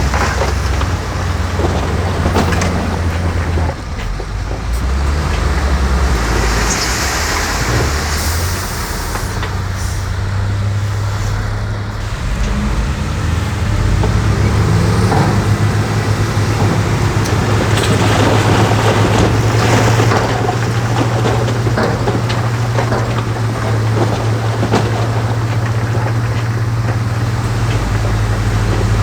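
Heavy diesel engines of construction machinery running steadily, their note shifting about fourteen seconds in, with scattered knocks and stretches of hiss.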